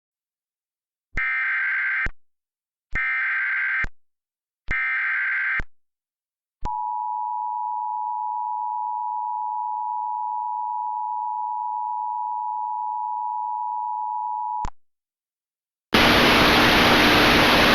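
Emergency Alert System header: three short bursts of screechy digital data tones, each just under a second long, then the steady two-tone EAS attention signal held for about eight seconds. About two seconds before the end a loud hiss of static comes in.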